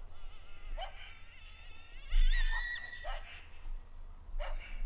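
Dog barking: several short, sharp barks about a second apart, with a drawn-out high-pitched call in the middle. A low thump on the microphone about two seconds in is the loudest sound.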